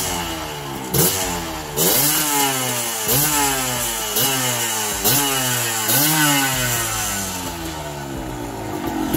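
Suzuki TS125's single-cylinder two-stroke engine revved in about six quick throttle blips, roughly one a second, the pitch jumping up and falling back each time, then settling back to idle near the end.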